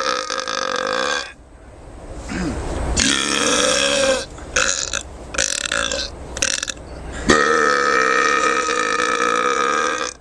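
Deliberate, long drawn-out human burps: one ends about a second in, another starts around three seconds in, a run of shorter choppy burps follows, and a long held burp of nearly three seconds closes.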